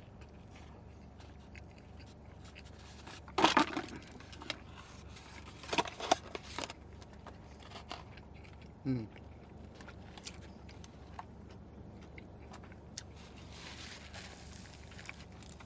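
Close-up eating sounds of someone biting into and chewing a Big Mac, with crinkling of its wrapping. There is a loud crackling rustle about three and a half seconds in, a cluster of sharp clicks around six seconds, a brief falling hum near nine seconds, and faint chewing clicks through the rest.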